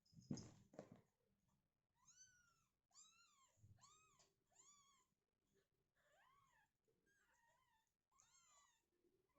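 Kittens mewing: a run of about eight short, high-pitched mews, each rising and falling in pitch, coming every half second to a second. A brief loud bump comes in the first second, before the mews start.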